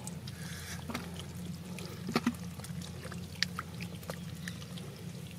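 Shallow water trickling and splashing, with scattered small splashes and knocks, the strongest about two seconds in, over a steady low hum.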